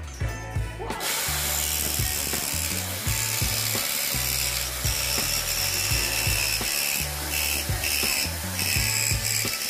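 Corded electric jigsaw running and cutting into plywood, starting about a second in, with steady high whining tones from the motor. Background music with a bass line plays underneath.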